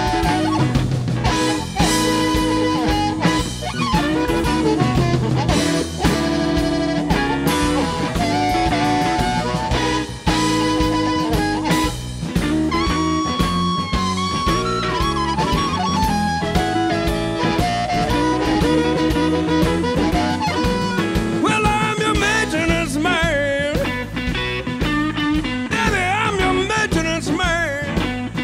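Blues band playing an instrumental break: drum kit and bass under a lead line of bent, wavering notes, with a strong guitar sound.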